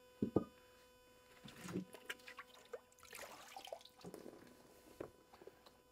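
Faint sloshing and dripping water as a cast-iron dumbbell is lifted out of a plastic tub of soaking solution, with a couple of light knocks near the start.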